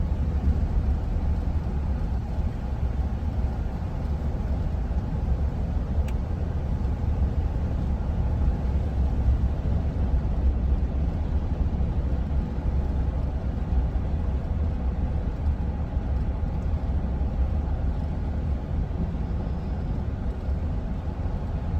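Inside a minivan driving at steady speed: a constant low rumble of road and engine noise.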